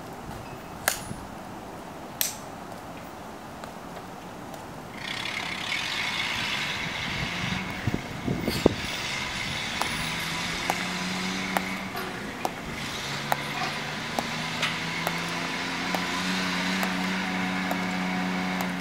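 Two sharp clicks of a Tomb guard's hard-soled shoes on the stone plaza. Then, about five seconds in, a maintenance vehicle's engine grows loud and keeps running with a steady hum and a high whine, while the guard's sharp steps go on clicking about once a second.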